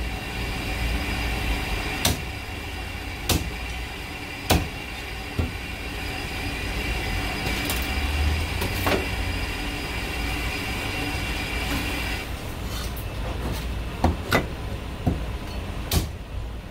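Meat cleaver chopping marinated goose pieces on a thick round wooden chopping block: a series of sharp, irregularly spaced chops, about nine in all, over a steady background hum with a high whine that stops about twelve seconds in.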